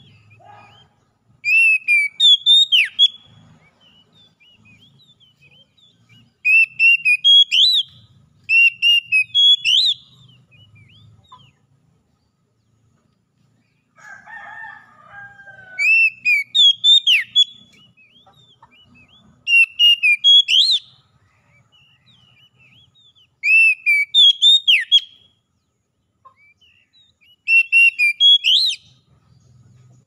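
Oriental magpie-robin singing: about seven short, loud phrases of quick rising and falling whistled notes, separated by pauses of a few seconds, with a lower chattering call in the middle of the stretch.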